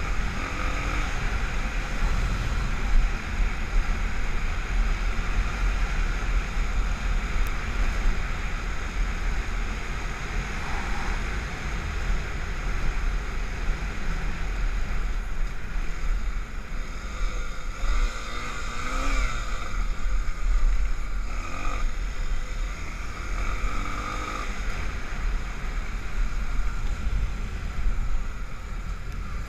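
Honda XR250 Tornado's single-cylinder four-stroke engine running on beach sand, mixed with heavy wind rumble on the microphone.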